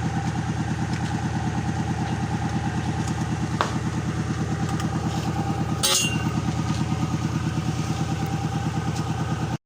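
Engine idling steadily with an even, rapid pulse, a brief sharp clank about six seconds in; the sound cuts off suddenly near the end.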